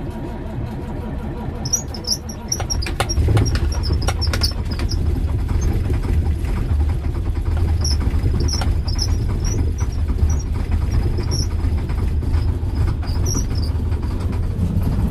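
Old Volvo semi truck's diesel engine being cold-started in freezing weather: it catches over the first few seconds with some knocking, then runs with a steady low rumble. Irregular high squeaks sound over the engine throughout.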